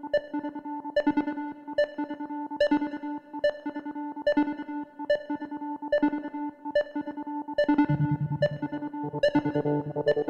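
Goa trance synthesizer intro: a looping synth pattern over held tones, with a sharp accented hit a little under once a second. A deep bass line comes in about eight seconds in.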